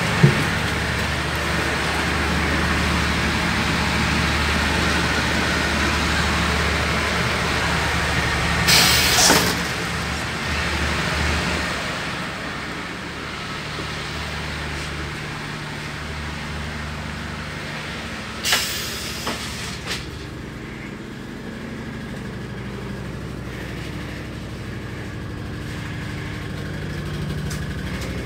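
Steady low machinery hum of an air-conditioned railway sleeper carriage, softer from about twelve seconds in, broken by two short bursts of hiss, the longer about nine seconds in and a brief one near eighteen seconds.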